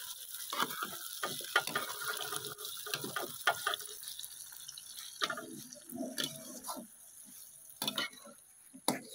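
Steel spoon scraping and knocking against an aluminium pot as meat, fried onions and bitter gourd are stirred together, over a faint frying sizzle. The scraping is busiest in the first few seconds, with two sharp knocks near the end.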